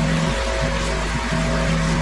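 Background music with a bass line stepping between held notes, over a steady rushing hiss.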